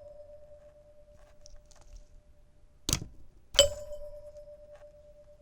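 Heath Zenith electric door chime's plunger striking its metal chime bar, which is weighed down with springs that change the bar's frequency; the bar rings on with one steady tone. A sharp click comes about three seconds in, and half a second later another strike sets the bar ringing again.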